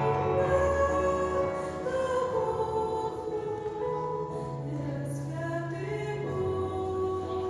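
Music with singing: slow, held vocal notes over sustained bass notes that change every second or two.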